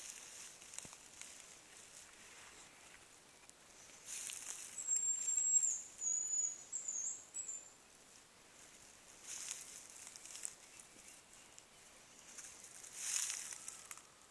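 Hazel grouse whistling: a very high, thin song of a long note followed by shorter, lower, wavering notes, about halfway through. Several bursts of rustling noise come before it, just after it and near the end.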